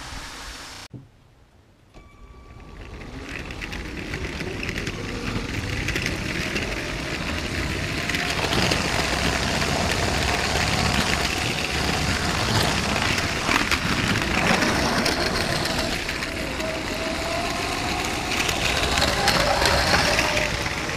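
LEGO Power Functions train running on plastic track, heard from a camera riding on the train: a steady clatter of wheels and track with a faint hum from the motors. After a brief near-silent gap about a second in, it builds up over the next few seconds and then runs on loudly.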